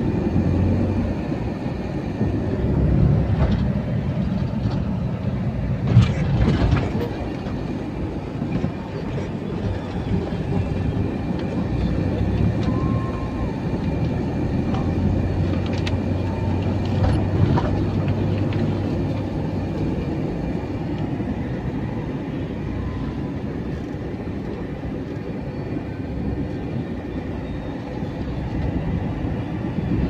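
Engine and road noise inside a moving vehicle's cabin, a steady low drone with a few knocks and rattles from the body, the loudest about six seconds in.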